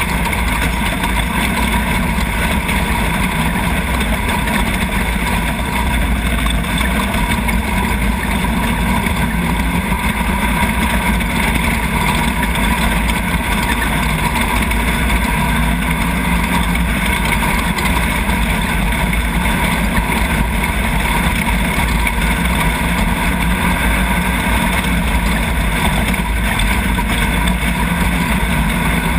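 Nissan VQ35 3.5-litre V6 engine of a Chenowth off-road race buggy running steadily and loudly while the buggy is raced along a dirt track, picked up by a camera mounted on the buggy.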